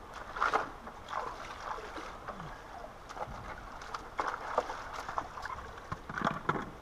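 A plastic gold pan of creek gravel shaken and swirled under shallow water: water sloshing and swishing in irregular pulses, with stones clicking against each other and the pan.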